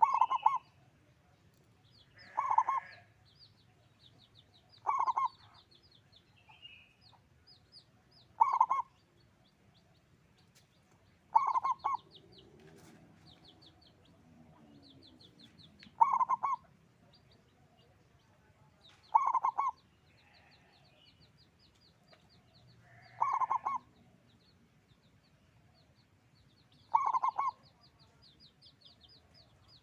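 Zebra dove (local perkutut) cooing: a short cooing phrase repeated about every three to four seconds, nine phrases in all.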